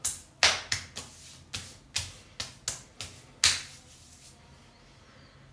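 Palms slapping and patting aftershave onto freshly shaved skin: about ten quick, sharp smacks over three and a half seconds, then they stop.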